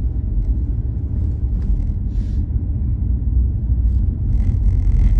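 Steady low rumble of a car driving on a road: engine and tyre noise heard from inside the cabin.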